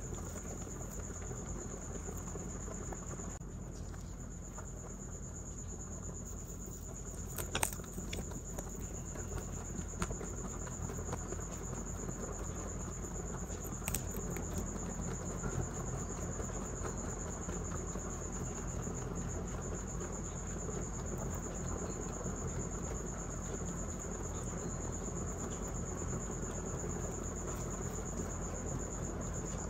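Two rabbits munching green vegetable stalks and hay close to the microphone: fast, continuous crunching and chewing, with a few louder snaps about 8 and 14 seconds in.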